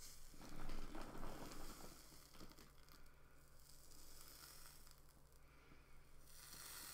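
Faint rustle and hiss of hair as a flat iron is clamped on and drawn down through a section of it, loudest about a second in.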